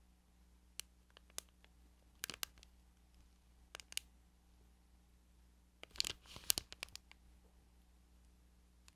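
Plastic gummy-candy bag crinkling as it is handled: scattered short crackles, with the loudest cluster about six seconds in.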